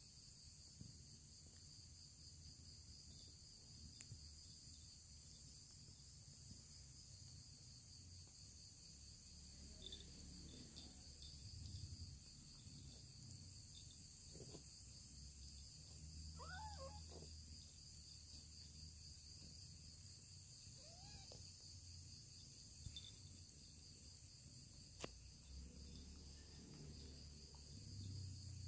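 Near silence, with a steady, faint, high cricket chirring throughout and a few faint mews from month-old kittens about halfway through.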